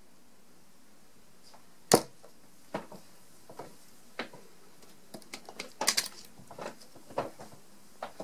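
A 25 g tungsten steel-tip dart (Unicorn Barneveld Phase 5 Purist) hitting a bristle dartboard with one sharp thud about two seconds in, the loudest sound. From about five to seven and a half seconds comes a run of lighter clicks and knocks as the darts are pulled out of the board.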